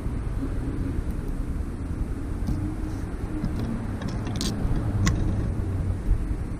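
Steady low background rumble, with a few faint light clicks and ticks as fine wire is pulled and wrapped round a small beaded pendant.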